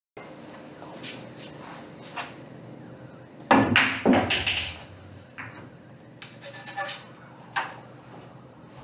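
A pool shot: a sharp crack of the cue on the cue ball and billiard balls clacking together about three and a half seconds in. A run of lighter ball-on-ball and cushion clicks follows, with one more sharp knock near the end.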